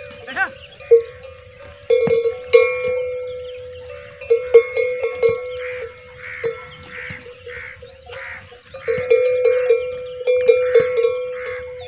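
Metal bells on browsing camels clanking and ringing irregularly, many uneven strikes over a lingering ringing tone.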